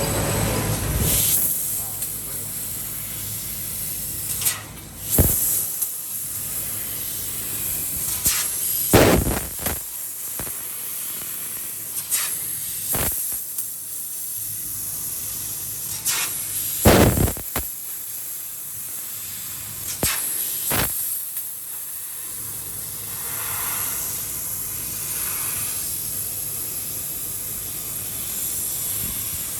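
CNC machine running: a steady high hiss over a low hum, with short sharp bursts every few seconds, clustered in the first two-thirds.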